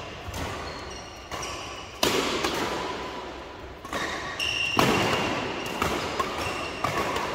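Badminton doubles rally: sharp racket strikes on the shuttlecock and players' shoes thudding and squeaking on the court mat, with the loudest knocks about two seconds in and just before five seconds.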